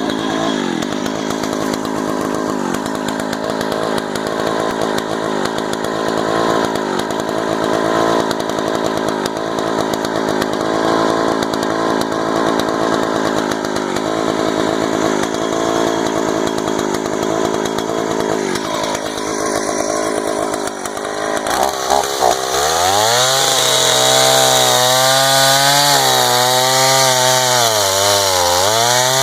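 Stihl 041 two-stroke chainsaw running at a lower speed for about twenty seconds, then throttled up sharply, its revs rising and dipping at high speed to the end. An old saw running in full working order.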